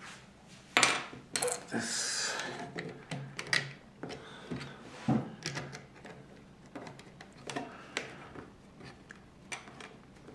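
Plastic LEGO bricks being handled and pressed together: a string of irregular small clicks and taps, loudest and busiest in the first couple of seconds.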